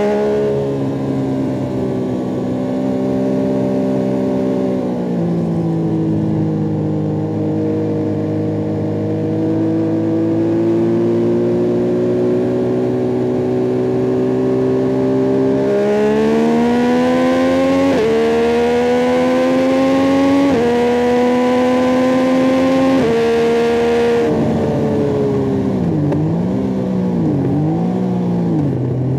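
Yamaha MT-09 SP's three-cylinder CP3 engine through an Akrapovic carbon racing exhaust, ridden on a track. It holds fairly steady revs for about half the time, then accelerates hard through three quick upshifts, each a sudden drop in pitch. Near the end the revs dip and rise a few times as the throttle is rolled off and on.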